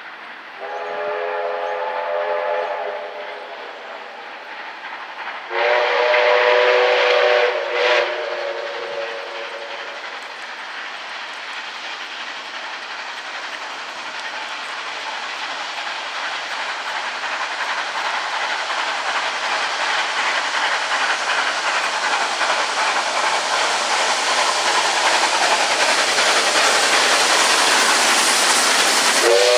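Steam locomotives 3237 and 5917 approaching double-headed. A multi-note steam whistle sounds a short blast about a second in, a longer, louder blast about five seconds in, and starts again at the very end. Between the blasts, the locomotives' working exhaust and the train running on the rails grow steadily louder as it nears.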